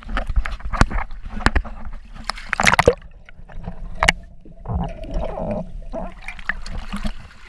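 Water splashing and slapping against an action camera held at the surface, then the camera goes under about three seconds in and the sound turns dull and muffled underwater.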